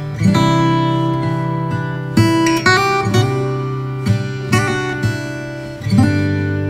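Background music: an acoustic guitar strumming sustained chords, with new strums about every second or two.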